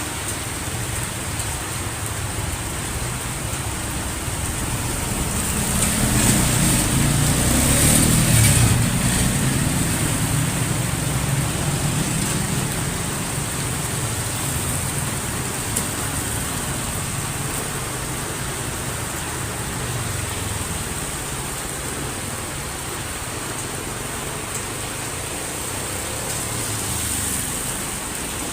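Heavy rain falling steadily, with a vehicle passing on the wet road; it builds from about five seconds in, is loudest around eight seconds and fades a few seconds later, and a fainter one passes near the end.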